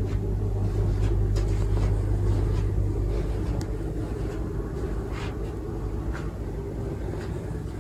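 Steady low mechanical rumble with a constant hum and a few faint clicks, slowly easing off over the last few seconds.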